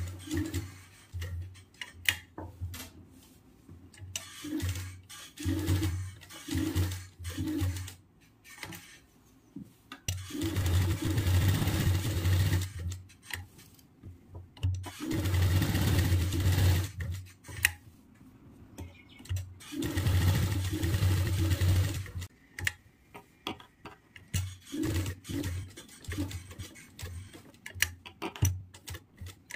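Electric sewing machine stitching fabric in several runs of a few seconds each, with a steady hum while it sews. In the pauses it stops and there are clicks and cloth rustling as the fabric is turned and repositioned.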